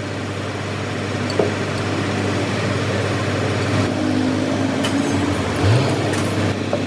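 A vehicle engine running steadily with a constant low hum, a few light clicks over it, and a brief rise in pitch about five and a half seconds in.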